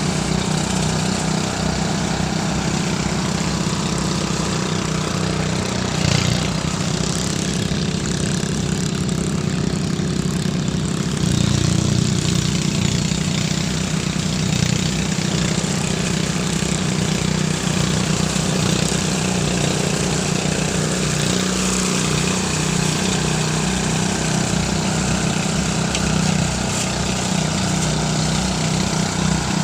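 Engine-driven rice threshing machine running steadily, a continuous low engine hum under a rushing, whirring noise. It swells briefly about six seconds in and again around eleven to twelve seconds.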